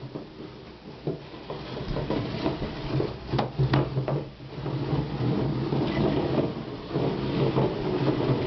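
Small plastic chairs being pushed across a tile floor: their legs scrape and knock unevenly, with a few sharp clacks about three and a half seconds in.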